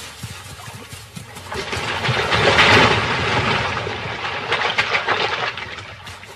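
Hippos fighting in shallow water: a loud surge of splashing and churning water builds about a second and a half in and fades near the end, over a low rumble.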